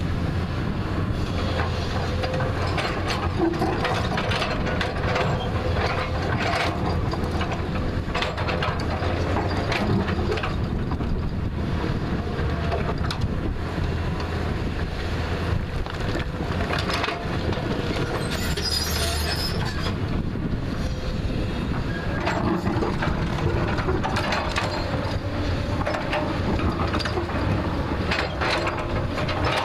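JCB 3DX backhoe loader working a hillside: its diesel engine runs steadily under load while the bucket and arm clank and knock against rock and soil. A brief high-pitched scrape comes about two-thirds of the way through.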